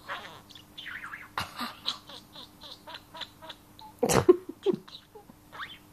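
Pet budgerigar chattering and warbling close to the microphone: a fast run of short chirps, clicks and squeaky warbles, with a louder burst about four seconds in.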